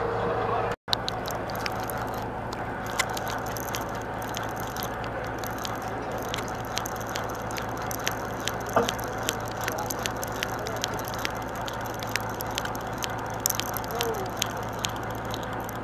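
Conventional saltwater fishing reel being cranked, its gears giving a string of uneven sharp ticks, a few a second, over the steady hum of the boat's engine and wind.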